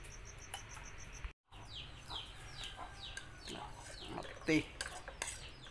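Faint, rapid, evenly spaced chirping of crickets, cut off about a second and a half in. Then chicks peep over and over, each call a short note falling in pitch.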